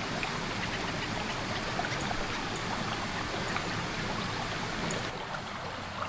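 Forest stream flowing: a steady rush of running water that becomes a little softer about five seconds in.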